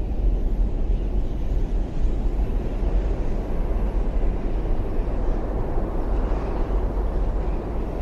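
Steady, loud, low rumble of outdoor ambience with no clear pitch.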